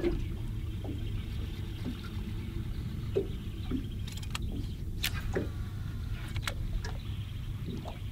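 Steady low rumble on a small fishing boat on the water, with a handful of short sharp clicks and knocks in the middle.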